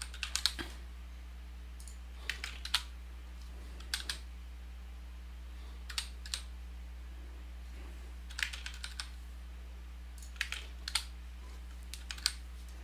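Typing on a computer keyboard: sparse keystrokes in short clusters of two to four clicks every second or two, over a steady low electrical hum.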